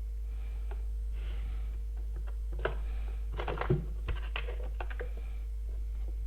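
Scattered light clicks and taps of small tools being handled at a phone-repair bench, most of them bunched between about two and a half and five seconds in, over a steady low hum.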